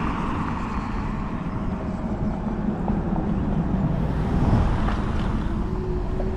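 Wind buffeting an action camera's microphone while riding an Apollo Go electric scooter, over a steady low rumble from the scooter rolling along a sidewalk.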